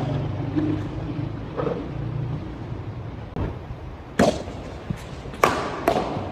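Badminton rackets striking a shuttlecock in a doubles rally: a few sharp hits over the last two seconds, about half a second to a second apart.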